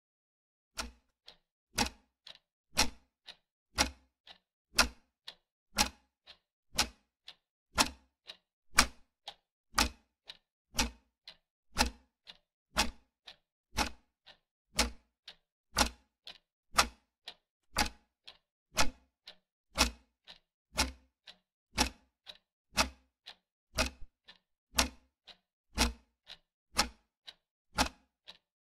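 Clock ticking sound effect, a strong tick each second with a fainter tick in between, keeping time for a one-minute countdown timer.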